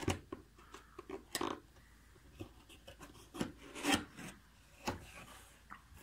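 Cardboard box being opened by hand: its flaps scraping and rubbing in a series of short scrapes, the loudest about a second and a half in and again near four seconds in.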